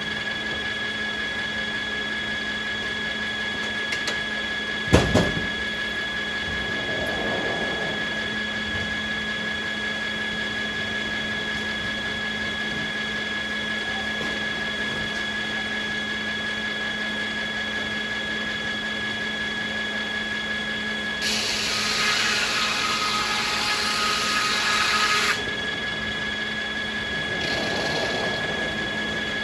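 Sawmill machinery running steadily with a constant hum and whine. A single sharp knock comes about five seconds in, and a noisy hissing surge lasts about four seconds near the end.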